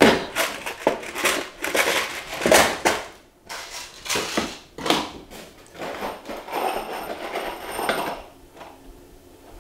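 Small boxes of screws rattling and hard plastic screw cases clacking as they are handled and set into a plastic storage bin, in a string of irregular clatters.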